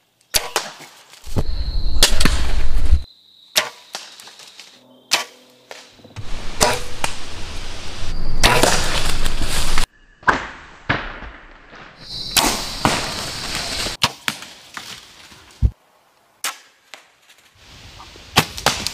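A string of compound-bow shots, each a sharp snap of the released string and arrow, some followed by a longer noisy stretch, with abrupt starts and stops.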